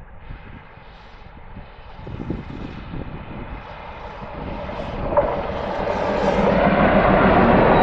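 WDG-3A ALCo diesel locomotive approaching, its engine drone growing steadily louder as it draws near, with a short sharp knock about five seconds in.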